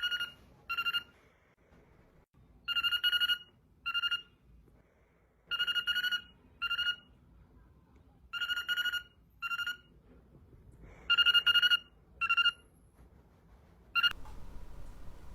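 Telephone-style ringing in double rings, a longer ring then a short one, repeating about every three seconds, five times over; the last ring is cut off near the end.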